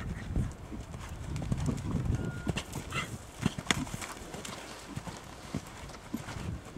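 Horse's hooves on arena sand at a canter: irregular soft thuds with a few sharper clicks partway through.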